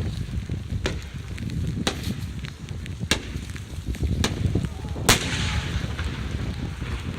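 Aerial fireworks from a 10-go shell: sharp bangs about once a second, the loudest about five seconds in with a rolling echo after it, over a steady low rumble.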